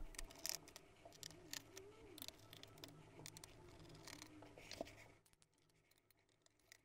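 Faint small clicks and taps of a screwdriver working screws out of a laptop's plastic bottom chassis, then silence from about five seconds in.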